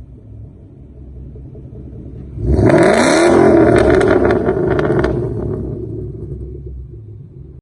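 Ford Mustang engine and exhaust rumbling low, then about two and a half seconds in a sudden hard rev with sharply rising pitch and crackles, which then fades away gradually.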